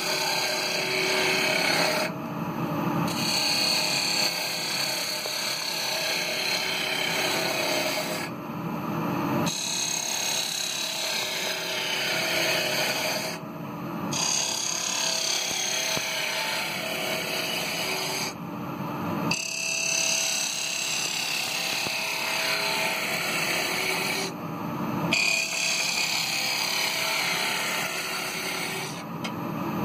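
Gouge cutting the inside of a kiln-dried ash bowl spinning on a wood lathe: a continuous shearing hiss of wood being cut over the steady hum of the running lathe. The cutting stops briefly about every five seconds between passes while the lathe keeps running.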